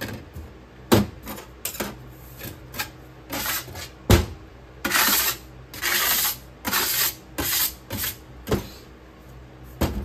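Putty-knife scraper striking off excess casting sand across the top of a metal casting flask: a series of rasping scrapes of blade on sand and flask rim, broken by a few sharp metallic knocks, the loudest about four seconds in.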